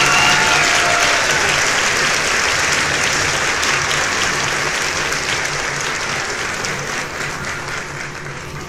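Applause with some cheering, loudest at the start and fading out steadily over several seconds, over a low steady hum.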